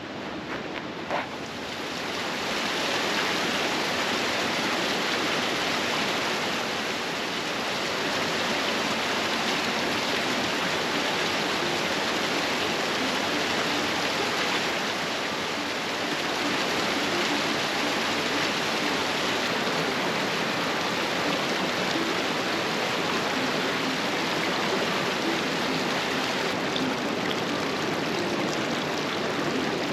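Fast-flowing creek water rushing steadily, swollen with spring runoff, growing louder about two seconds in and then holding steady.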